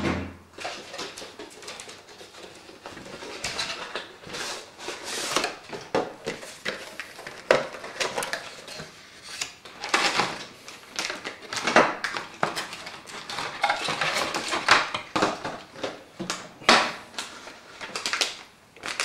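Irregular metallic clinks, clicks and rattles of small metal computer-case parts and screws being handled.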